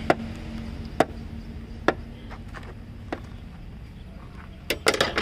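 A metal hand tool clicking against a car battery's terminal clamp as the terminal is tightened: single sharp clicks about once a second, then a quick run of several clicks near the end.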